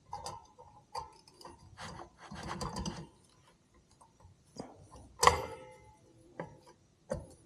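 Metal clutch parts being handled during reassembly: scattered small clicks and clinks and a scraping rub, then one loud metallic clank about five seconds in that rings briefly.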